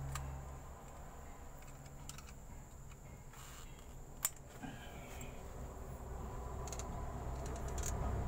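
Small metal parts of a truck transmission's planetary range unit being handled during reassembly: a few faint clicks and one sharp metallic click about four seconds in, over a low steady hum.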